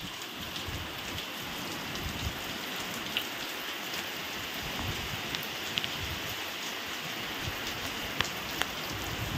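Heavy rain pouring down steadily on open ground and a flat surface, with a few sharp ticks of drops scattered through it.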